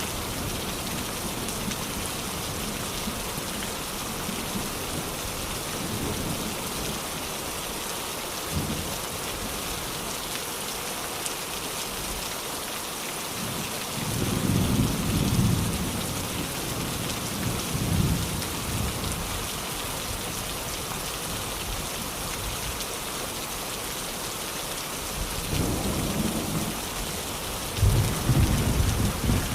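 Steady heavy rain falling, with rolls of thunder rumbling low about halfway through and again near the end.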